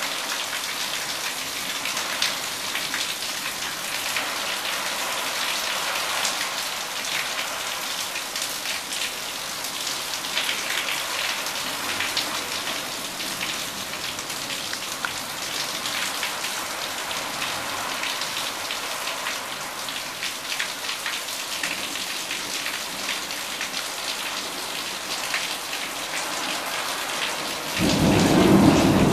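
Heavy rain pouring steadily onto a waterlogged lawn and concrete walk, with many separate drops splattering close by. About a second before the end the sound suddenly grows louder and deeper.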